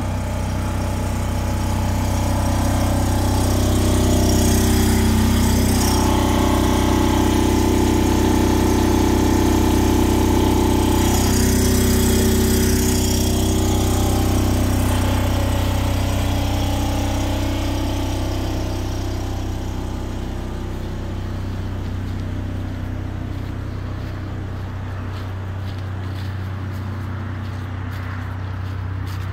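Kubota 7000-watt low-boy generator running steadily with a low hum. It is loudest at first and eases off somewhat over the second half.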